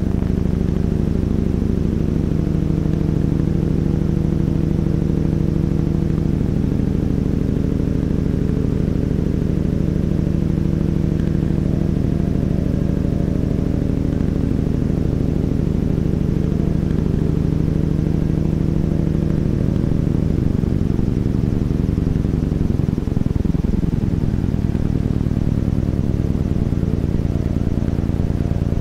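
Low electronic drone music: a dense stack of steady held low tones that bend and slide past one another a little past the middle, then settle into steady tones again.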